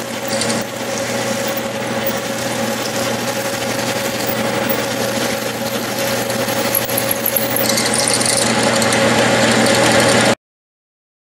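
Logan 10-inch lathe running while a 23/64-inch twist drill in an Albrecht chuck bores into the spinning workpiece: a steady machine hum with a held tone under the hiss of cutting. A higher hiss joins about three-quarters of the way in, and the sound cuts off abruptly near the end.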